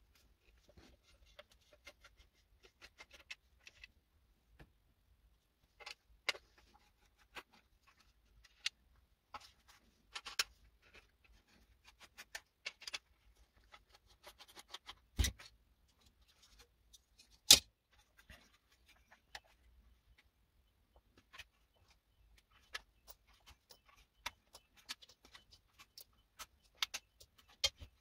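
Scattered clicks, taps and light scrapes from handling the opened plastic case of a small Behringer Xenyx 502 mixer and working a screwdriver on it, with two sharper knocks a little past the middle, the second the loudest.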